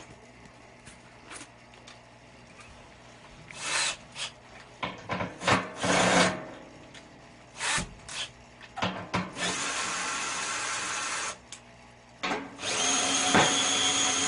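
Cordless drill-driver running screws on the furnace's sheet-metal panels in two spells of about two seconds each, the second with a steady high whine. Before them comes a string of knocks and clanks from metal parts being handled.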